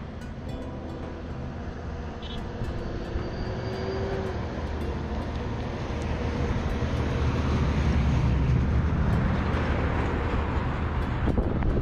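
A vehicle driving along a road: a steady low rumble of engine and tyres with rushing wind noise, getting louder from about halfway through.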